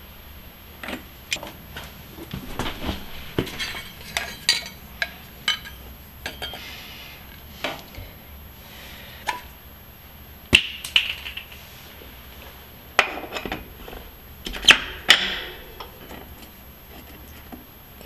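Hand tools and bicycle parts being handled during a bike build: irregular clicks and metallic knocks, with the sharpest strikes a little past halfway and again about three-quarters through.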